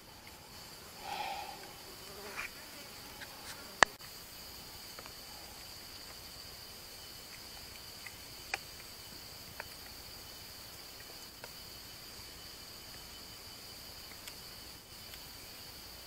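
Insects droning steadily in forest, one continuous high-pitched hum. A brief louder sound comes about a second in, and a single sharp click just before four seconds in is the loudest thing, followed by a few fainter clicks.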